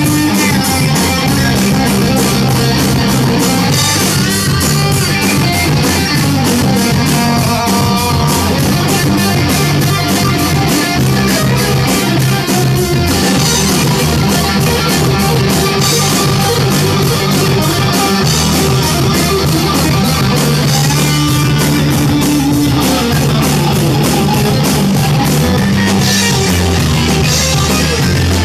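Loud rock music: electric guitar playing over a drum kit, running without a break.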